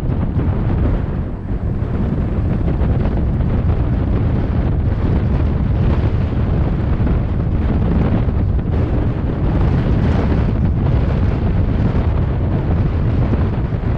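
Loud, steady wind buffeting the microphone, a continuous low rumble with no breaks.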